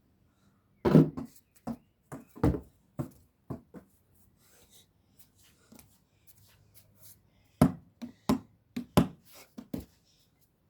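A basketball bouncing: a run of thuds about half a second apart, then a pause of a few seconds, then another run near the end.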